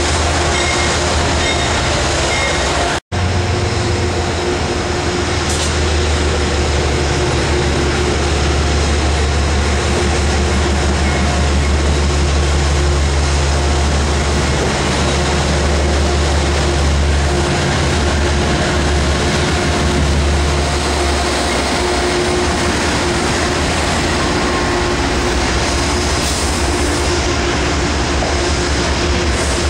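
Metro-North GE Genesis P32AC-DM diesel locomotive drones steadily as it pulls passenger coaches past, wheels rolling on the rails. The sound cuts out completely for an instant about three seconds in.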